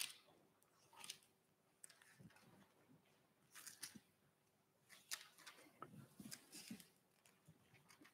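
Faint rustling of paper pages being turned and handled, in a few short bursts over near silence.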